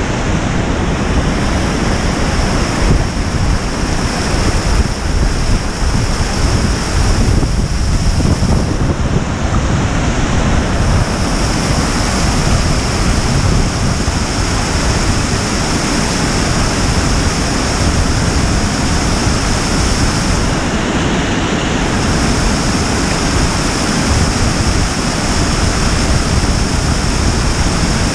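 Tall waterfall pouring down a rock face onto the rocks below: a steady, loud rush of falling water.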